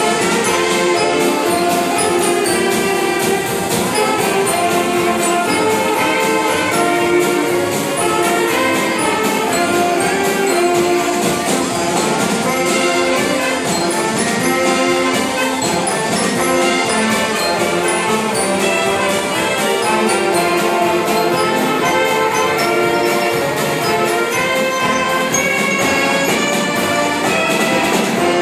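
Mummers string band playing live: a reed section of saxophones with accordions and banjo over snare and bass drum, carrying the tune at a steady beat.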